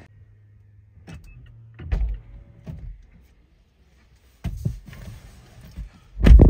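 Sounds of a car being got into: a low steady motor hum for the first few seconds, then scattered knocks and thumps of doors and handling. The loudest thump comes near the end.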